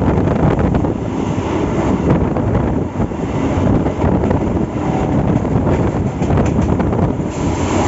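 Wind buffeting the microphone on a moving MEMU electric train, over the steady rumble of the coaches running along the track.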